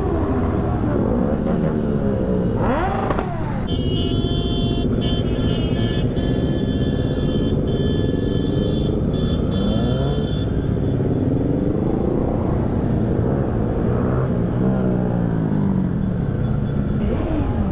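Several motorcycle engines running and revving as the bikes ride slowly past, their pitch rising and falling over a continuous low rumble. A steady high-pitched tone sounds from about four to ten seconds in.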